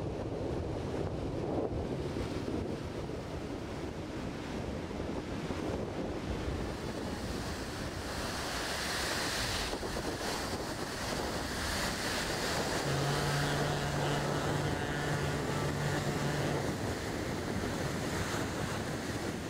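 Wind on the microphone over moving water. From about eight seconds in, this gives way to the steady rushing hiss of the car ferry Badger's bow wave breaking along her hull as she steams ahead. A low steady tone sounds for about four seconds past the middle.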